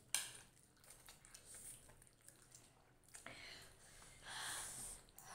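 Quiet eating of instant noodles: faint small mouth and fork sounds, with a short hissy slurp of noodles being sucked in about four seconds in. A single click sounds at the very start.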